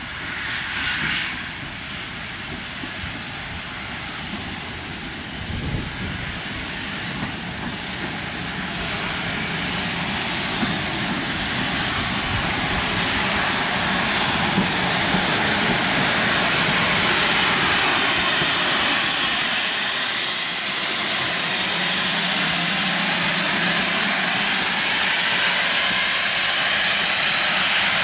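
Steam train approaching and running past, a steady rushing hiss that grows louder through the first half and then holds.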